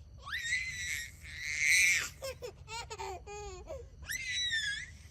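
A voice giving high-pitched squealing cries: a long squeal that rises at its start, a run of quick warbling cries, then a second long rising squeal near the end.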